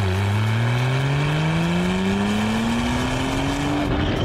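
Porsche 911 Carrera 4S (991.2) with a Fi Exhaust full system and high-flow downpipes: its twin-turbo flat-six is accelerating, and the exhaust note rises steadily in pitch for about four seconds. The note breaks off near the end.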